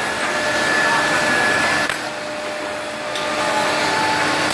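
CNC router with a 12 kW spindle and boring head machining solid wood: a steady machine rush with a thin high whine, broken by three short clicks a little over a second apart.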